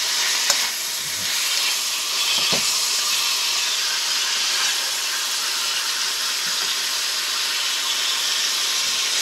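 Sausage and onions sizzling in a hot pan, a steady hiss, while a spatula stirs them, with a couple of light knocks in the first few seconds.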